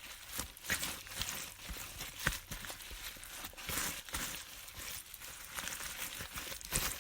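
Kimchi seasoning paste being spread and mixed by hand into salted napa cabbage leaves. It makes a continuous run of irregular short rustling and rubbing sounds with no steady rhythm.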